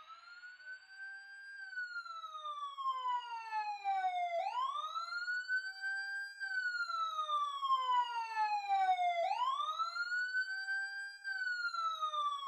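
Siren in a slow wail: each cycle rises quickly in pitch, then falls slowly over about three seconds, repeating roughly every five seconds, two and a half times.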